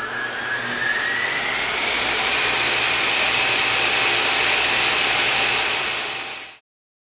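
A machine's motor spinning up, its whine rising in pitch over the first three seconds, then running steadily with a rushing noise. It fades and cuts off about six and a half seconds in.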